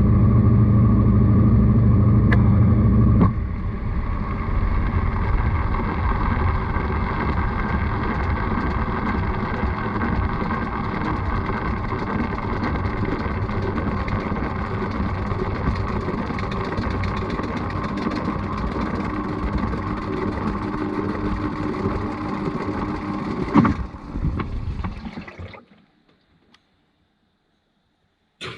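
Washing machine running, a steady motor hum and drum rumble with churning water, heard from inside the drum. It drops to a softer, noisier churn about three seconds in, gives a sharp click near the end, then dies away to silence.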